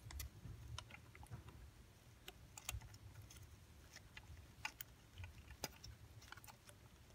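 Faint, irregular small clicks and taps of a gloved hand handling engine-bay parts while fitting a PCV valve into the engine block.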